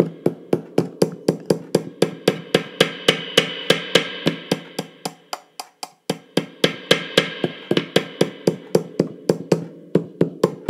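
A screwdriver tapping steadily on the pole pieces of a Fender Precision Bass pickup, about five taps a second, heard as amplified knocks through a small Roland Cube guitar amp. The tone knob is being turned to test the new wiring: the bright top of the taps dulls away and comes back, and about halfway through the sound briefly drops almost out.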